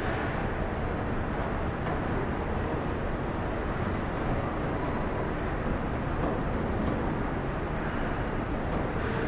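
Steady, even low drone of a car ferry's machinery, its engines and ventilation, heard inside the enclosed car deck.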